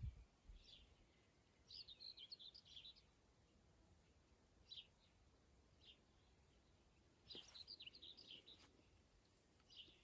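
Small songbirds singing faintly: two short twittering runs of high notes, with a few single short chirps between them.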